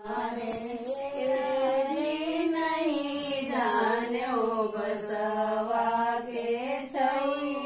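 Slow, chant-like singing with long held notes that waver and glide slowly in pitch.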